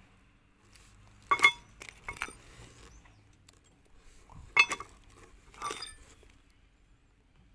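New steel planetary hub gears for a JCB 3DX axle clinking and ringing as they knock against each other and the ring gear while being handled. There are four clinks, the loudest about a second and a half in and about four and a half seconds in.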